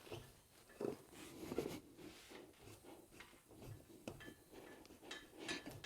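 Faint, scattered knocks and scrapes of a small 12-inch motorcycle tire and wheel being worked on a tire-changing machine as the tire is mounted onto the rim.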